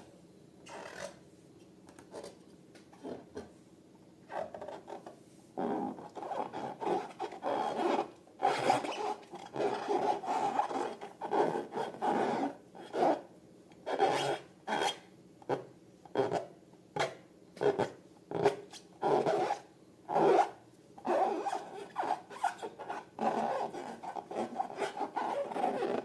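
Long latex balloons rubbed and squeezed by hand: a run of short rubbing strokes, faint and sparse at first, then louder and close together from about five seconds in.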